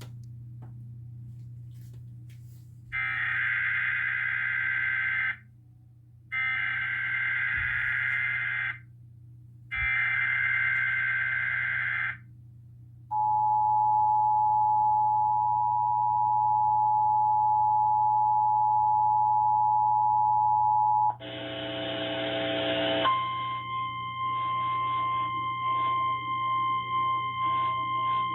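Emergency Alert System Required Monthly Test tones. Three harsh digital data bursts of the SAME header, a second apart, are followed by the steady two-tone attention signal for about eight seconds. Near the end a short buzzy burst gives way to a steady high tone with other sound under it, over a low hum.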